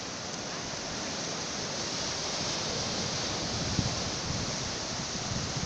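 Sea surf breaking and washing up a flat sandy beach: a steady rushing hiss that swells a little toward the middle.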